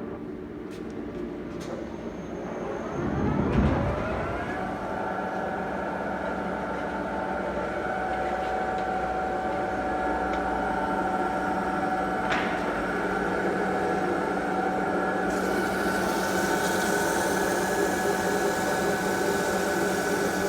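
CNC lathe spindle speeding up with a rising whine about three seconds in, then running steadily with a hum of several steady tones. A single click comes near the middle, and a high hiss joins in about three-quarters of the way through.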